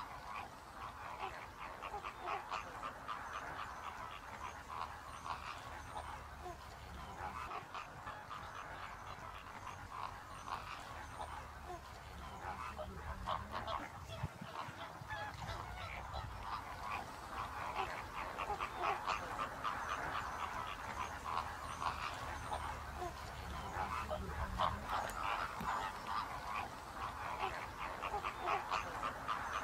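A flock of greater flamingos calling continuously, a dense goose-like gabbling and honking of many birds at once.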